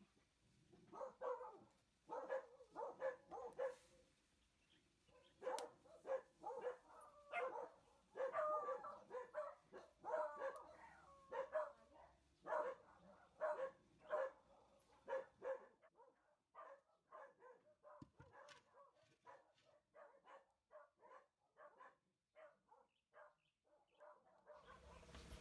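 A rapid series of short animal calls, louder through the first part and fainter after about sixteen seconds.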